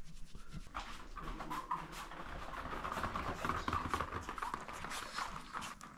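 Small dogs' claws clicking and pattering on a hard floor as they trot about, in many quick, irregular taps.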